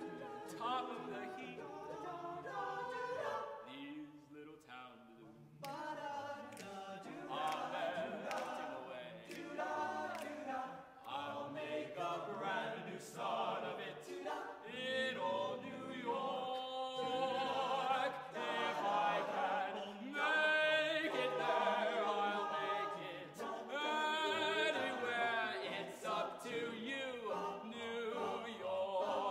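Men's a cappella choir singing, a male soloist out front leading over the ensemble's backing voices. The singing thins and softens briefly about four seconds in, then the full group comes back in.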